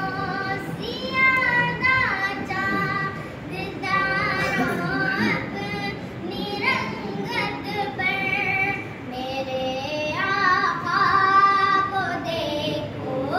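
A young boy singing a naat, a devotional song in praise of the Prophet, unaccompanied: one clear child's voice in long melodic phrases with drawn-out held notes, swelling strongest near the end.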